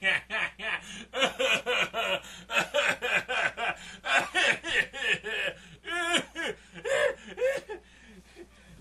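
A man snickering in rapid breathy bursts, about four or five a second. About six seconds in there is a short wavering, higher-pitched vocal sound, and it dies down near the end.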